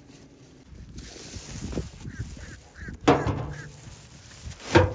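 A plastic trash bag rustling as it is lowered into an outdoor trash can, with a sharp thump near the end. A few short bird calls sound about two seconds in.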